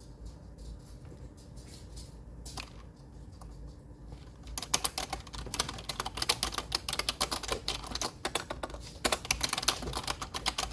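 Typing on an Actto retro typewriter-style wireless keyboard: a few scattered key clicks, then rapid continuous typing from about halfway through.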